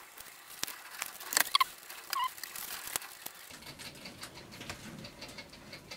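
Light clicks and handling noises, then a small butane jet lighter is lit about three seconds in and its blue flame burns with a steady low hiss, heating heat-shrink tubing.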